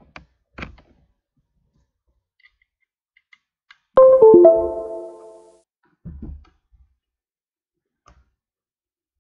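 Windows USB device-connected chime: two quick notes, one just after the other, that ring out and fade over about a second and a half. It sounds as the STM32F4 Discovery board is plugged in by USB, the sign that the computer has detected the board. A few faint handling knocks come before and after it.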